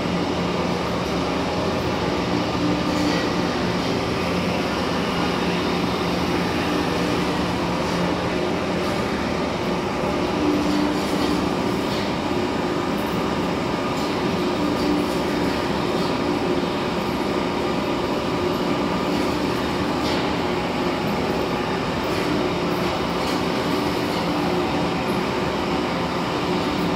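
Steady drone of heavy machine-shop machinery, with vertical turning lathes running, steady hum tones and a few faint ticks over it.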